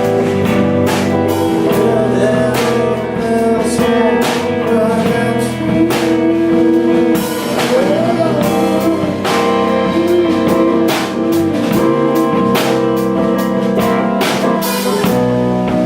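Live rock band playing: guitars and a drum kit with regular drum hits, and a voice singing a bending melody line over them.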